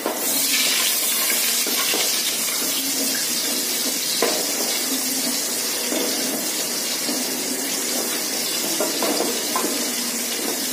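Ghee sizzling in an aluminium pot on the stove, a steady hiss, while a wooden spatula stirs it, with a few soft knocks and scrapes of the spatula against the pot.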